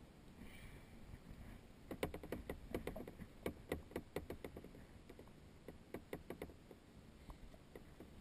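Light, irregular clicks and taps of water and paddle around a sea kayak, starting about two seconds in and coming several to the second in bunches.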